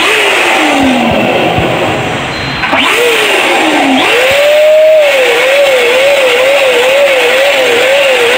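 Electronic, siren-like sound effect: a single tone slides down twice, then holds and wavers evenly up and down about twice a second, over a steady hiss.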